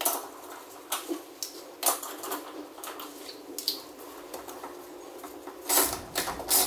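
Wheel lug nuts being threaded onto the studs and run down with a hand socket wrench: scattered small metal clicks and clinks, with a quicker run of louder clicks near the end.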